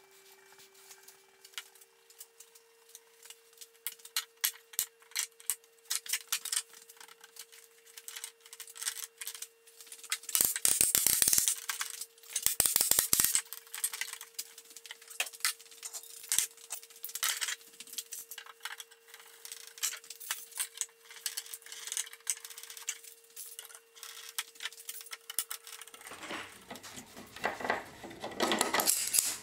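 Glue-up clatter: a wooden mallet tapping glued planks flat, with two quick runs of sharp knocks about a third of the way in. Around these are scattered clicks and knocks of metal bar clamps being handled, then a louder stretch of metal rattling and scraping near the end as clamps are slid into place.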